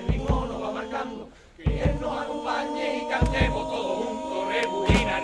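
A carnival street group singing in chorus over steady held notes, with the bass drum striking in pairs about every second and a half. The music dips briefly about a second and a half in.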